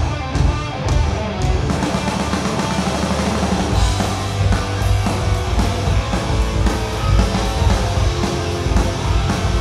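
A heavy metal band playing live on electric guitars, bass guitar and drum kit, with the bass and low end growing heavier about four seconds in.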